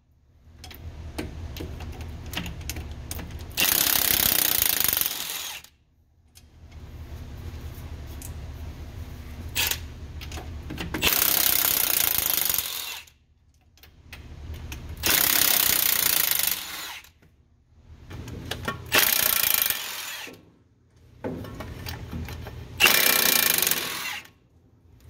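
An impact wrench on a half-inch 12-point driveline socket loosens the driveshaft's 12 mm bolts in five separate runs with short pauses between. Each run starts quieter and then turns into a loud hammering.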